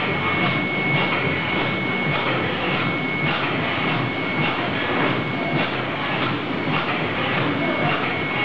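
LTRG-160 high-speed soft-tube filling and sealing machine running: a steady mechanical clatter of the rotary tube table with a constant high whine, which drops out for a couple of seconds past the middle and returns near the end.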